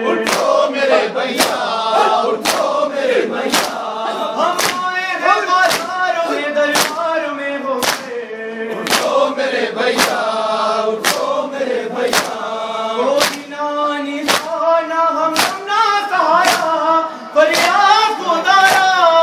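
Men chanting a noha (Shia lament) together, led by a male reciter, over rhythmic chest-beating (matam), a sharp slap about once a second.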